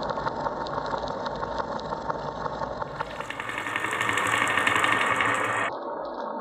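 Marbles rolling and clattering along a wooden marble run track, a steady stream of rapid small clicks. About halfway through, a louder and brighter rattle of many marbles comes in, then cuts off abruptly shortly before the end.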